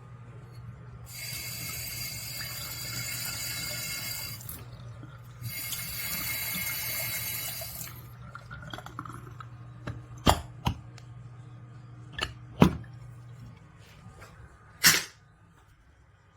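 Water from a waterfall-spout bathroom faucet runs for about three seconds, stops, then runs again for a couple of seconds. Several sharp knocks follow.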